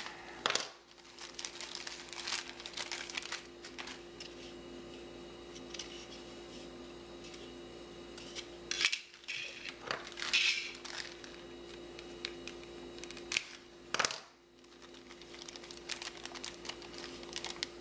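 Plastic packaging bags crinkling and rustling as they are handled, with a few sharper clicks and taps of hard plastic quadcopter parts: a Dromida Ominus canopy, frame and battery bay.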